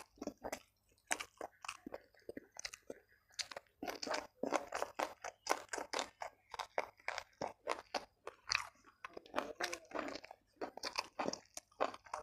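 A person chewing and crunching food close to the microphone: many quick, crisp crunches with brief pauses, from a mouthful of raw vegetables with rice and shredded chicken.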